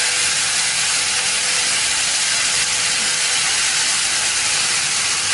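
Ground chili sambal paste sizzling steadily in hot oil in a wok as it is tipped in and starts to fry, with steam coming off.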